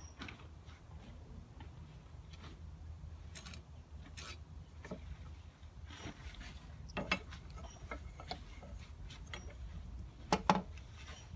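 A square cherry-wood blank and a triangle square being handled while lines are marked across the wood: light rubbing and scratching with scattered small knocks, the loudest a quick double knock near the end.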